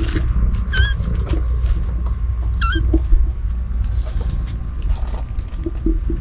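A kitten gives two short, high squeaks about two seconds apart, over a steady low rumble.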